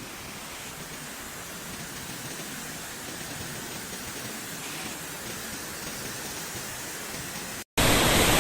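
Steady rushing of flowing water, slowly growing louder; after a brief cut near the end it is much louder and closer.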